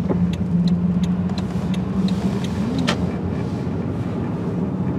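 Car driving along a country road, heard from inside the cabin: a steady engine and tyre hum, with a few light clicks, the clearest about three seconds in.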